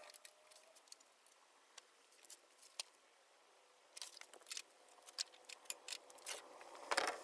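Faint, irregular small metallic clicks and clinks of hand tools being handled, growing busier from about four seconds in as the worker gets up from under the machine.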